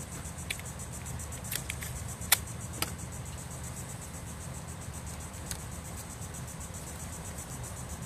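Insects trilling steadily in a high, even pulse, with a few sharp clicks and crackles in the first three seconds as adhesive tape and a paper strip are handled.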